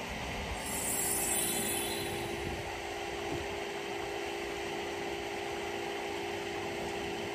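Steady rush of water from a raised spa spilling into a backyard pool, with a steady low hum under it and a brief high hiss about a second in.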